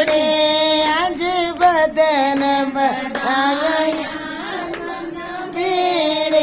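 Women singing a Himachali badhai folk song for a birth, holding long drawn-out notes, with hands clapping along.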